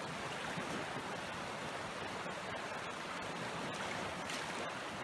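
Rain-swollen water rushing past in a steady, even torrent: runoff at flood level after days of rain.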